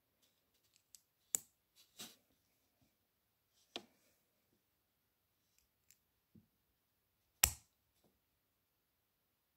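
Small LEGO bricks clicking as they are pressed and fitted together by hand: a few sharp plastic clicks, the loudest about a second and a half in and again about three quarters of the way through, with faint ticks between.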